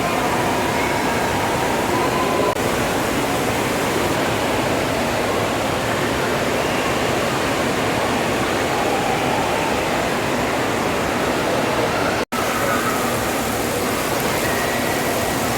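Steady rushing noise like falling or running water, with faint voices in the background. It drops out for an instant about twelve seconds in.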